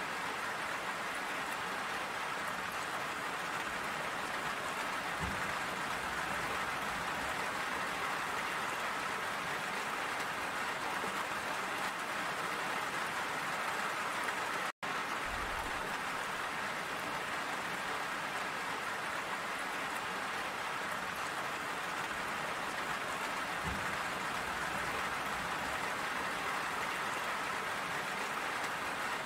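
Steady rain falling, an even hiss of drops with no let-up. The sound cuts out completely for an instant about halfway through.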